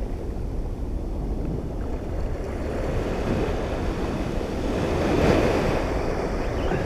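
Ocean surf washing up the beach in the shallow wash, with wind rumbling on the microphone. A wave breaks and rushes in more loudly about five seconds in.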